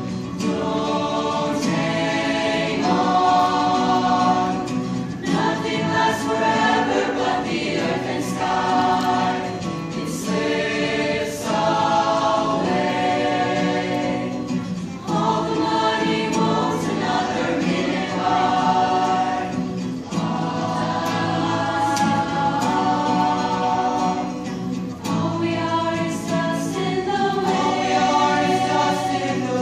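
Mixed-voice chamber choir singing in harmony in sustained phrases, accompanied by fingerpicked acoustic guitar.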